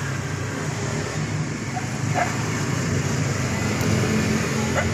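Motor vehicle engine running steadily nearby, a low rumble that grows a little louder. Two short, sharp higher sounds stand out over it, about two seconds in and again near the end.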